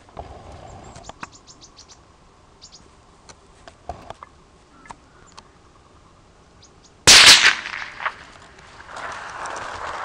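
A single .22 WMR rifle shot about seven seconds in: one sharp, loud crack with a short ringing tail. Before it, a few faint high ticks; after it, rustling as the shooter moves.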